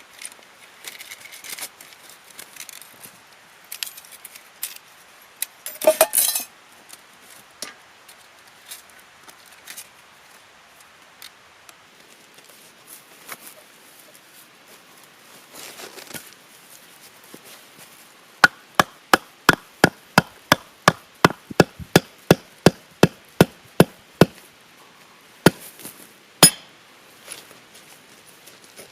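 Sharp strikes on wood with a hand tool: a quick regular run of about three blows a second for some six seconds, then two more. Before them come small scattered knocks and rustles, and a short louder scraping clatter.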